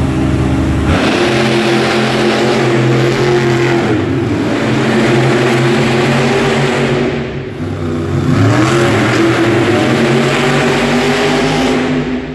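Monster truck's supercharged V8 engine revving hard, its pitch rising and falling with the throttle. It eases off about seven seconds in, then revs up again.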